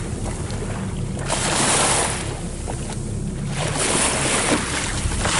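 A boat's engine hums steadily beneath the rush of sea water along the hull and bow wave. The rush swells and fades every second or two.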